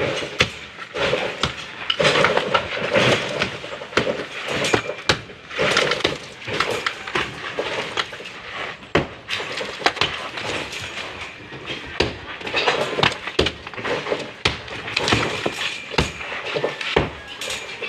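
Repeated hammer blows on a plastered concrete wall: sharp, irregular knocks as pieces of concrete break off and crumble.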